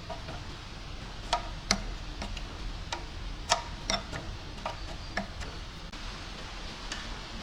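Irregular sharp clicks and taps of tools and metal parts being handled, about one every half second to second, unevenly spaced.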